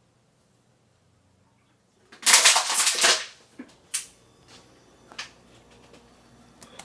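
Cups and saucers clattering against each other and the countertop. A rapid burst of clinks comes about two seconds in, followed by a couple of single sharp knocks.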